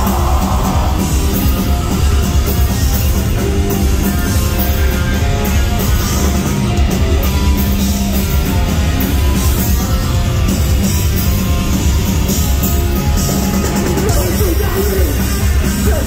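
Metallic hardcore band playing live at full volume: distorted guitars, bass and pounding drums, with shouted vocals over them.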